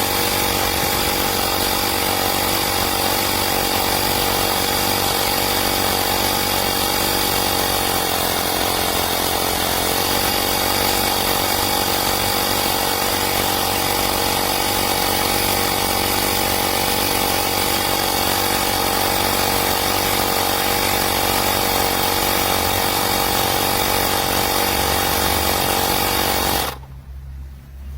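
AstroAI 12 V portable electric tyre inflator running, a loud steady buzzing drone. Its pitch sags briefly about eight seconds in, and it cuts off abruptly near the end.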